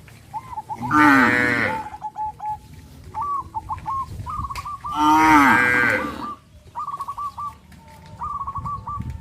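Cow mooing twice, about four seconds apart; each moo is long and loud, falling in pitch at its end.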